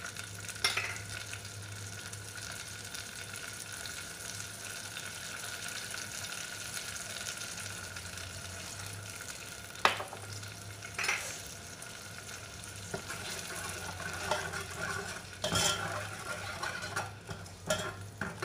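Chili paste sizzling as it is sautéed in oil in a pan, with a spatula stirring it and knocking against the pan a few times, the sharpest knock about halfway through. A low steady hum runs underneath.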